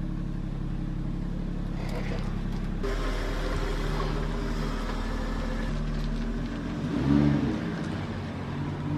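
Car engine running steadily, heard from inside the cabin as a low even hum, with a brief voice about seven seconds in.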